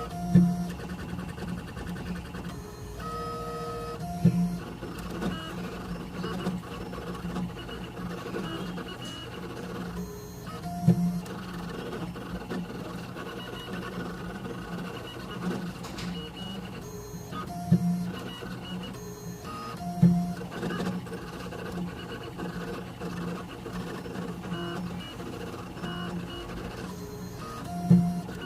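Small CNC engraving machine at work on a pen: its stepper motors whir in steady tones that shift in pitch as the axes move, with several brief louder low bumps along the way.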